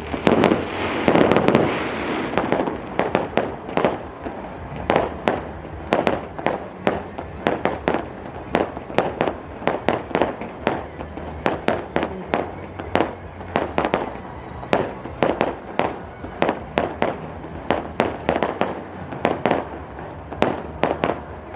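Fireworks going off in a long rapid series of sharp bangs, about two to three a second, with a denser, louder cluster in the first couple of seconds.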